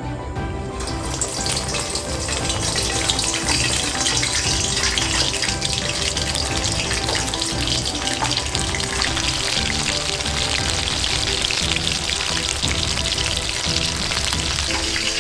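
Starch-coated chicken karaage pieces deep-frying in hot oil for the second fry: a steady sizzle that sets in about a second in.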